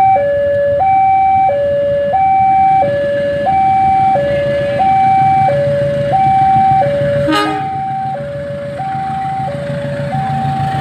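Railway level-crossing alarm sounding an electronic two-tone warning, steadily alternating high and low tones, each held about two-thirds of a second. A sharp click comes about seven seconds in, after which the alarm is quieter and the low running of the CC 201 diesel locomotive passing is heard beneath it.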